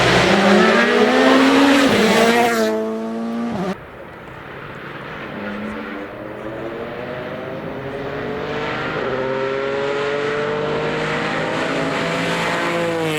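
Rally car engine at full throttle passing close, with heavy tyre noise, its pitch climbing then dropping away; it cuts off abruptly about four seconds in. Another rally car engine follows, quieter at first, its pitch rising steadily as it accelerates and draws nearer.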